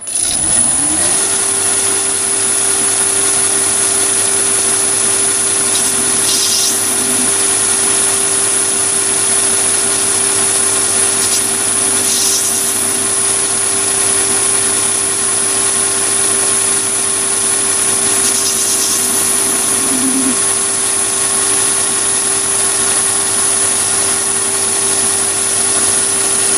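Chinese mini lathe spinning up and running steadily with a high whine, as a carbide insert tool plunges into a brass bar to cut shallow decorative grooves. Each plunge brings a brief cutting hiss, every few seconds.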